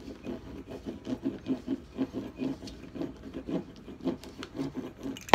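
Pizza cutter wheel rolled quickly back and forth over cheese slices on a plastic cutting board: a steady, repeated rubbing scrape of short strokes, a few per second.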